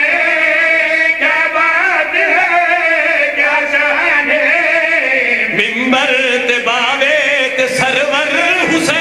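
A group of men chanting a devotional refrain together into microphones, in long held notes with a wavering melody.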